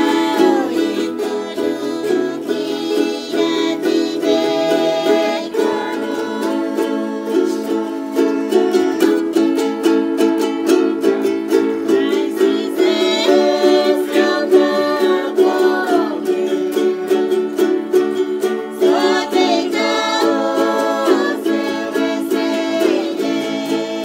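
Ukulele strummed steadily in chords, with a voice singing a melody over it.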